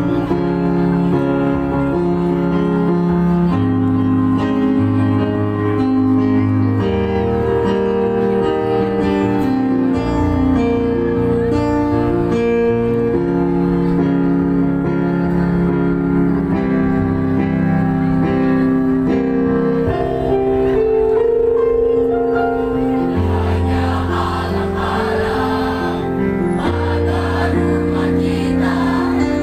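Mixed choir of boys' and girls' voices singing in harmony, holding long chords that change slowly, with low bass notes under the upper parts.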